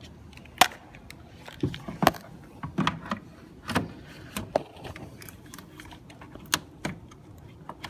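Irregular clicks and knocks of parts and tools being handled while an engine air box is fitted back into a car's engine bay, the sharpest about half a second and two seconds in.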